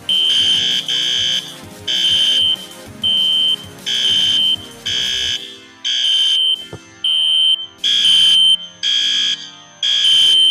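Two System Sensor SpectrAlert horn strobes sounding together out of step: a wall-mount P1224MC classic horn on high volume in temporal code-3, and a ceiling-mount SpectrAlert. They give loud, harsh electronic horn blasts, each about half a second long, that overlap in an uneven pattern.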